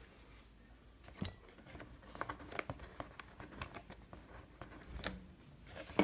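Faint, scattered light clicks and rustles of hands handling the plastic housing and wired selector switch of an Arno Silence Force fan.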